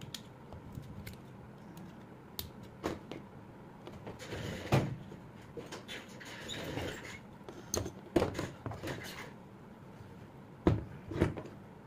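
Handling and tool noise from work on a car alternator rotor: irregular clicks, scrapes and knocks of metal parts and tools against the rotor and a wooden bench, with a few sharper knocks in the second half.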